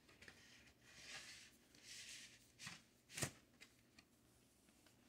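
Faint rustling and sliding of paper and cardboard as vinyl record sleeves and a gatefold jacket are handled, with two soft taps about three seconds in.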